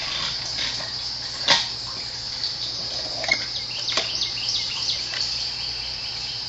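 Steady, high-pitched outdoor insect chorus, with a few sharp clicks or knocks, the loudest about a second and a half in, and some faint chirps.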